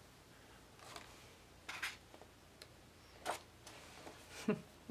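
Soft paper rustles from coloring book pages being turned and handled: a few short, quiet sounds about a second apart.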